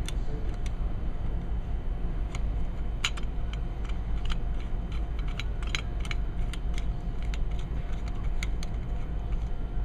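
Scattered small metallic clicks and ticks as an Allen key starts the screws into a chrome clamshell cover over a motorcycle handlebar switch housing, over a steady low hum.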